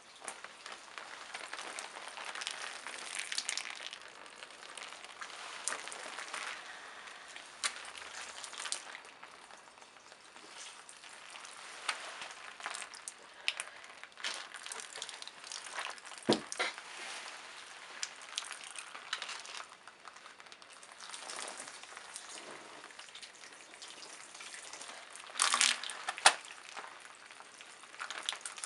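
Wine-soaked toilet tissue crackling and rustling against skin as it is handled and breaks apart, with a wet, sizzling patter of dripping liquid. There are scattered sharper crackles, and a single thump about halfway through.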